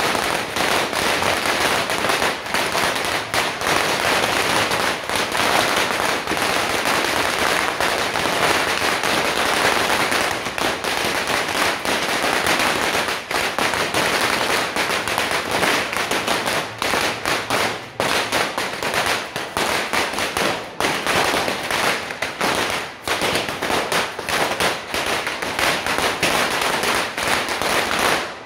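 Beehive fireworks tower, a rack of bottle rockets, firing into the crowd: a dense, unbroken crackle of launches and bangs that thins toward the end into more separate bangs.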